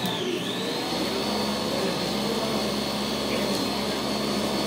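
Small electric food processor with a stainless bowl running steadily while chopping pesto ingredients. Its motor whine dips briefly near the beginning and then recovers.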